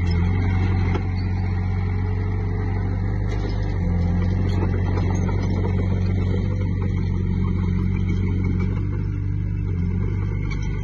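Diesel engine of a Komatsu D20P crawler bulldozer running steadily under work, its note stepping up and down a few times.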